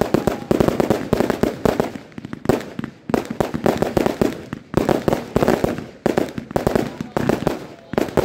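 Aerial fireworks going off in quick volleys of bangs and crackle, in waves with brief lulls between them.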